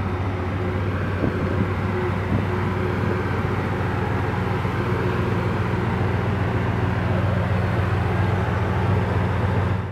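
Twin-turbo LS V8 engine idling steadily.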